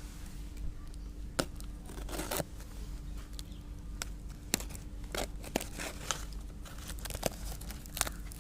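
Watch packaging being handled and torn open: crinkling and tearing, with scattered sharp clicks and rustles throughout.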